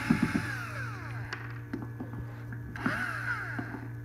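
Cordless drill/driver backing out the Phillips screws on a geared hub motor's side cover, its motor whining up and winding down in two short runs, the first at the start and the second near the end, with a few short clicks at the start.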